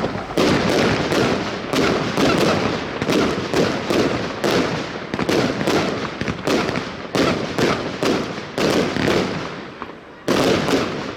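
Firework battery (Funke Weißblinker Dahlien Z1, a white strobe-dahlia cake) firing shot after shot in quick succession, about three a second, each burst trailing off in a hiss. The shots thin out near the end, then one last loud volley.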